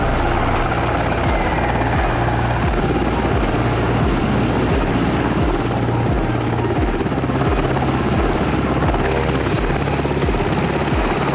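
Sikorsky H-60 Black Hawk helicopter coming in to land: loud, steady rotor beat and turbine noise as it hovers low and touches down.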